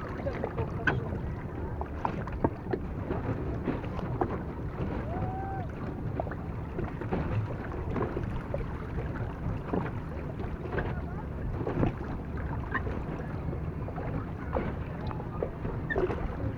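Small boat moving across shallow water, with water lapping and splashing against the hull in many short irregular splashes and a steady low rumble of wind on the microphone.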